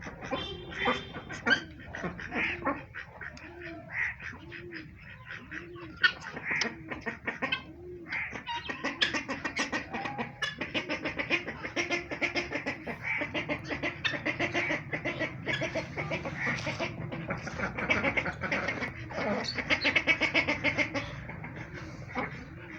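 Mixed flock of domestic poultry calling: a low call repeating about twice a second at first, then from about 8 seconds in, many birds calling rapidly and more loudly at once.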